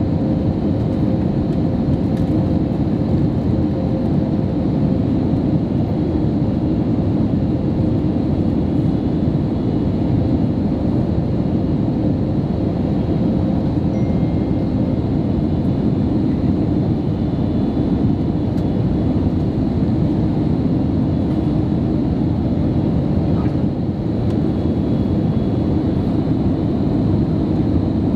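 Steady engine and airflow rumble inside the cabin of an Airbus A321neo in flight, heard from a window seat, with a faint steady hum over it.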